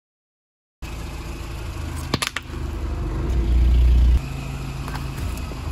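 After a brief silence, a car's engine and tyres rumble low as the car rolls slowly over a soft gel-filled object on concrete. There are a few sharp cracks about two seconds in, and a louder low rumble between about three and four seconds that stops abruptly.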